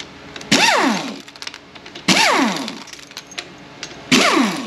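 Power ratchet on the 8 mm bolts of a 4F50N transmission's valve body, triggered in three short bursts about a second and a half apart. Each burst spins up with a hiss and winds down in a falling whine as a loosened bolt runs out.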